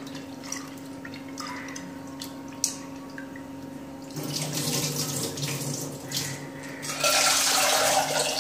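Toor dal being rinsed by hand in a pressure-cooker pot at a stainless-steel sink. First the grains are swished and rubbed in the water with small clicks. About four seconds in, the rinse water is poured off into the sink, and near the end the tap runs hard into the pot. A steady low hum sits underneath.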